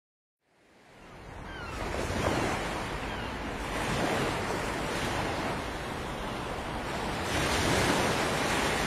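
Ocean surf breaking and washing up on a beach, fading in from silence and rising and falling with each wave.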